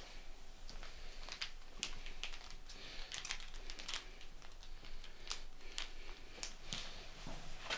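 Light, irregular clicking and ticking, a few small clicks a second, from a small object being handled and fiddled with in the hands.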